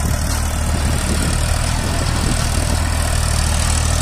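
Diesel tractor engine running steadily as it tows a trolley loaded with sacks over soft, wet ground.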